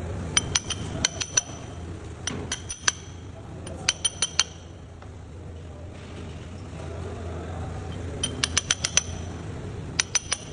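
Short runs of quick, ringing metallic clinks, a metal tool striking or tapping metal parts, five bursts of three to six strikes each over a steady low hum.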